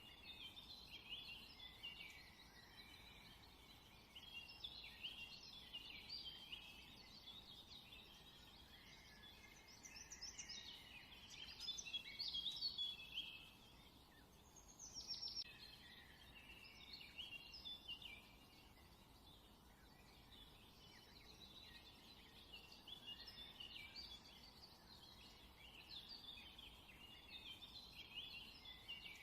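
Faint birdsong: many small birds chirping and twittering in overlapping short calls, busiest about ten to thirteen seconds in, with one falling whistle shortly after.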